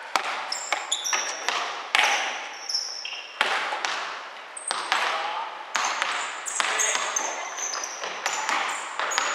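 Basketball bouncing on a hardwood gym floor, each bounce echoing around the hall, with short high squeaks of sneakers on the court several times.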